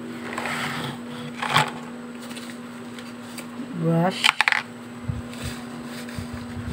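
Small plastic makeup items and a brush cover being handled, with a few sharp clicks and rattles about one and a half seconds in and again around four seconds in, over a steady low hum.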